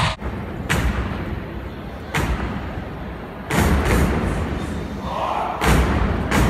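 Fraternity step team stomping in unison on a stage: four heavy thuds, spaced about a second and a half to two seconds apart.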